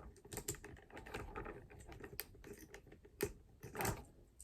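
Small plastic clicks and rattles from a Transformers action figure and its mini figures being handled and fitted together, with two louder clicks about three and four seconds in.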